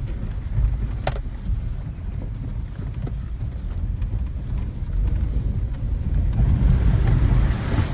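Low, steady rumble of a vehicle driving over rough, muddy ground, heard from inside the cab, growing a little louder near the end. A single sharp click about a second in.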